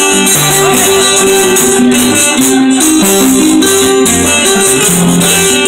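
A Puerto Rican cuatro leads a small string band through an instrumental break between sung décimas, with plucked melodic runs over a steady percussion rhythm.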